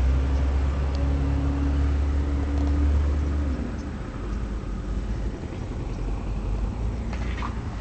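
An engine running at a steady low pitch; about three and a half seconds in its pitch drops and the engine sound cuts out, leaving only a rough background noise.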